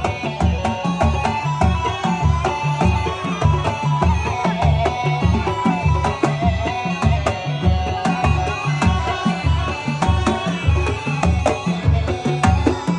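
Arabian folk music: a steady, even beat of deep drums, about two to three strokes a second, under a wavering melody.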